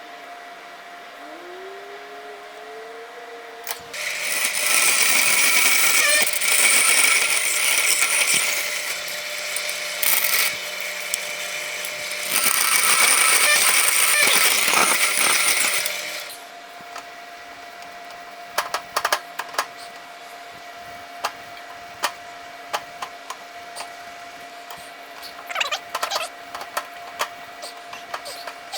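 A handheld power tool runs in two bursts of several seconds each, with a steady high whine. Scattered light clicks and taps of hand tools and parts being handled follow.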